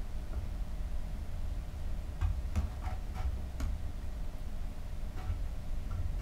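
A handful of faint light clicks and taps, most of them about two to four seconds in, over a low steady room rumble: small handling noises of hands and a wire tool against a cardboard model rocket body tube while a glued patch is held in place.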